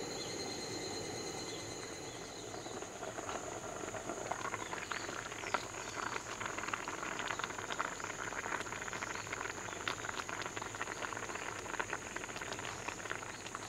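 Kimchi hot pot simmering in a gold-coloured aluminium pot on a camp stove, with small irregular bubbling pops from about three seconds in. A steady high chirring of insects runs underneath.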